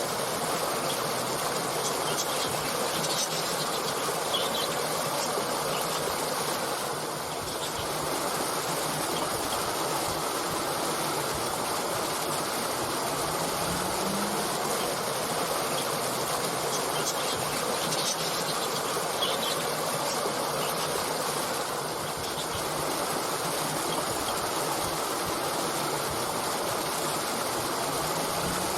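Stream water flowing and burbling steadily, with a few faint, brief high chirps of small birds.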